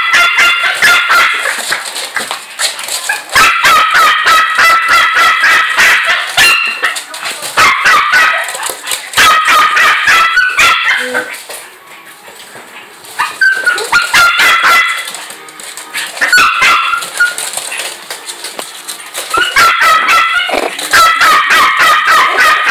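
Puppies yapping in loud bursts of rapid high-pitched yips during rough play, broken by a few short pauses.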